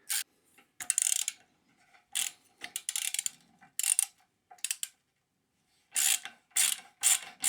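Hand driver with a T27 Torx bit ratcheting in short bursts of rapid clicks as it screws a Campagnolo rear derailleur's mounting bolt in from the back.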